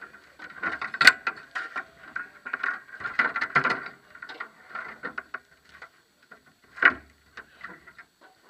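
Irregular mechanical clicks and rattles, as of hard parts being handled close to the microphone. They come thick and fast for the first few seconds, then thin out, with one louder knock about seven seconds in.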